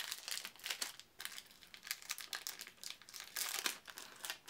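Crinkling of a trading-card booster-pack wrapper being handled, a run of irregular sharp crackles with a denser cluster about three and a half seconds in.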